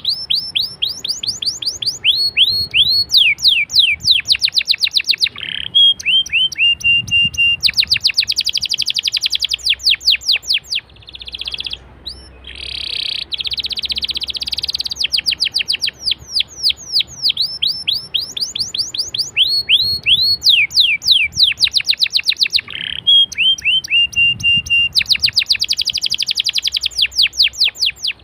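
Domestic canary singing: long rolls of rapid downward-sweeping notes, dense trills and short held whistles. The same sequence of phrases comes round again after about 17 seconds.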